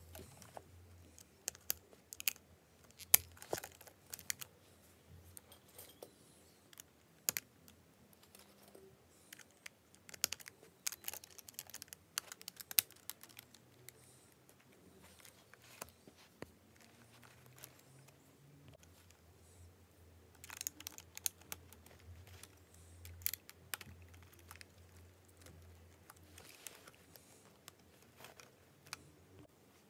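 Lego Technic plastic pieces being handled and snapped together: irregular sharp plastic clicks and rattles, with a faint steady hum underneath.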